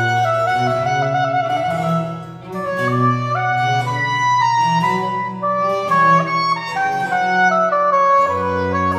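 Baroque oboe playing a slow melodic line over baroque cello and harpsichord continuo, with a brief break between phrases about two seconds in.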